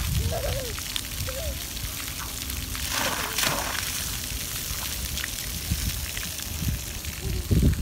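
Water spraying from a splash pad's ground-level jets, with a louder gush of spray about three seconds in. A few low thumps come near the end.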